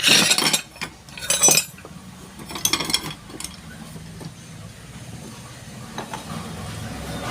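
Metal clinking and clattering as pressure cooker parts and hand tools are handled, in three short bursts within the first three seconds, then a few faint ticks.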